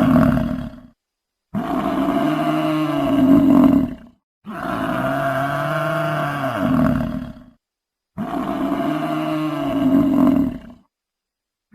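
A large animal's roar played as a repeated sound effect: the same call comes round about every three seconds, with a short silence between repeats.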